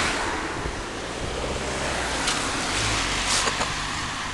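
Wind rushing over the microphone of a camera riding on a moving bicycle, mixed with tyre and road noise. It is loudest at the start and eases off within the first second. There are two short rattles, one about two seconds in and one about a second later.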